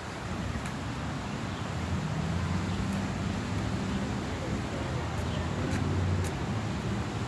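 Steady outdoor background noise with a low engine hum, like distant traffic, that swells up through the middle and fades near the end.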